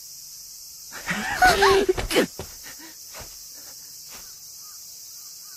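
A steady high chorus of insects, with faint repeating chirps. About a second in, a person's voice breaks in for about a second with a short, strained outburst, followed by a few faint clicks.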